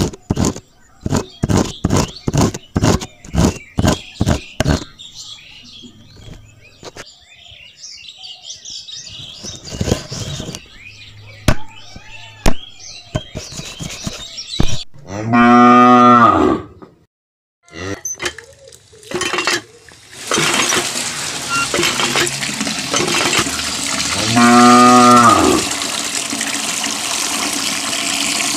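A hand tool scraping in sand in quick, even strokes, then a cow mooing in long calls, twice, with a third call starting at the very end. From about two-thirds of the way in, a steady hiss of water spraying from a miniature shower into a plastic tray runs under the calls.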